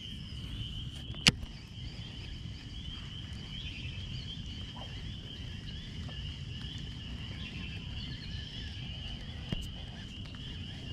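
Steady high-pitched chorus of small animals, such as frogs or insects, over a low outdoor rumble. A sharp click comes about a second in and a fainter one near the end.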